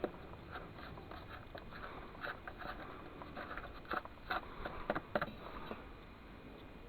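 Scattered light scrapes and taps of a tool working in a dry mix of plaster of Paris, sand and cement, busiest from about two to five seconds in.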